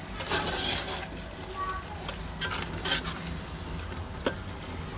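A spoon stirring and scraping through thick grated bottle-gourd halwa in a large aluminium pot, in a few short scrapes, with a sharp click near the end.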